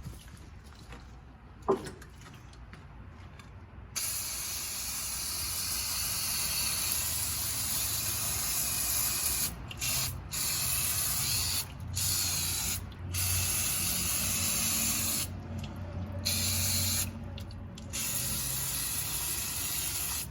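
Aerosol cleaner spraying in long hissing bursts, starting about four seconds in and stopping briefly several times, after a single sharp click.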